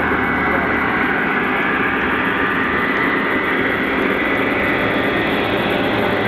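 O scale three-rail model freight train rolling past close by: a steady rumble of metal wheels on the track mixed with electric motor hum.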